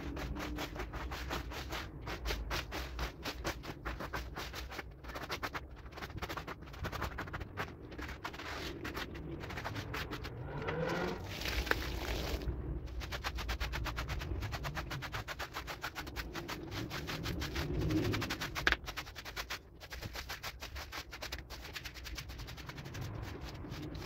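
Rapid, even run of scraping knocks, many a second, as a rug is scrubbed.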